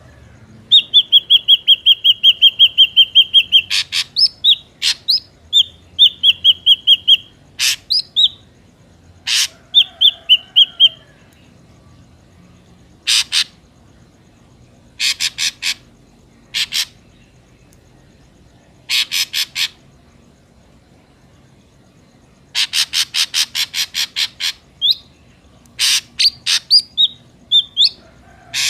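Ashy drongo calling: bursts of rapid repeated whistled notes alternating with harsh, buzzy rattling calls, separated by pauses of a second to a few seconds.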